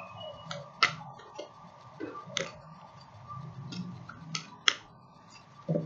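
A deck of tarot cards being shuffled and handled by hand: a scattering of short sharp clicks and card slaps, irregularly spaced, over a faint steady hum.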